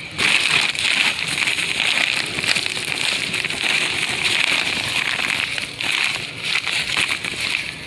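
Dry potting materials being handled: a dense crackling rustle as coco peat is emptied from a woven plastic sack onto a heap of rice hull.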